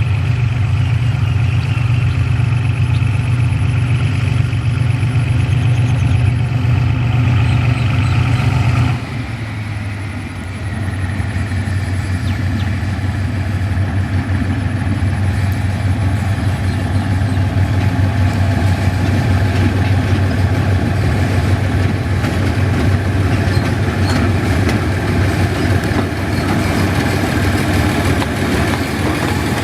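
GE (GEK class) diesel-electric locomotive's engine running as it hauls a train in. About nine seconds in, the engine note drops suddenly to a lower, quieter one, then the running builds again.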